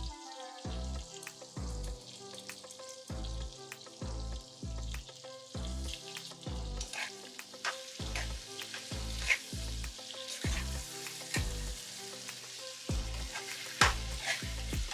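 Seasoned shrimp sizzling in hot oil in a pot with sausage, onion and red bell pepper, stirred as they cook. Background music with a steady low beat plays under it.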